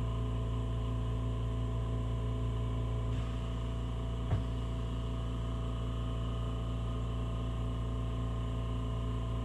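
Oxy-propane torch flame running steadily, a low steady rush. A faint click comes a little after three seconds, and a sharper one about four and a half seconds in.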